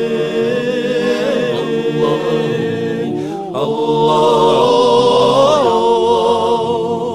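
Wordless a cappella nasheed interlude: layered voices holding long, wavering notes with no instruments. A short break comes about three and a half seconds in, followed by a louder second phrase.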